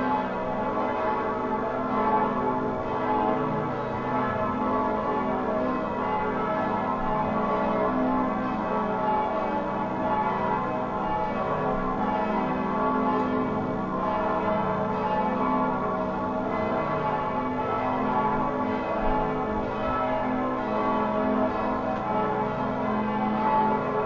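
Bells ringing continuously, many overlapping tones blending into a sustained, even wash of sound.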